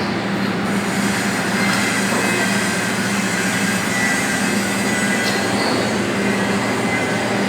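Hydraulic segment-type head surface grinder running, a steady machine hum with a continuous noisy hiss over it.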